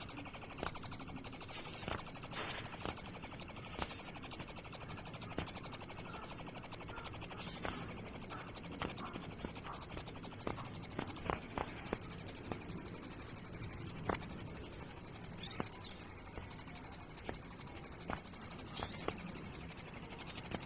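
Ciblek sawah, a small prinia songbird, singing one long unbroken high trill of very fast repeated notes, a little softer in the second half.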